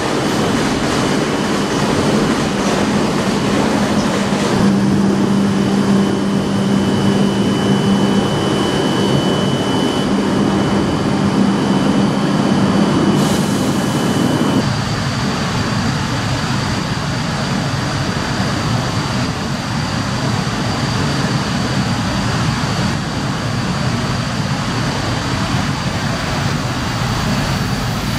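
Steady noise of an E5 series Shinkansen standing at the platform, its onboard equipment running with a low hum and a high whine. About halfway through the hum drops away and a higher whine takes over.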